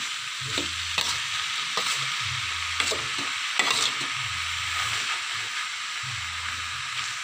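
Oyster mushrooms and tempeh sizzling in a metal wok while a metal spatula stirs them, scraping and clicking against the pan again and again over a steady frying hiss.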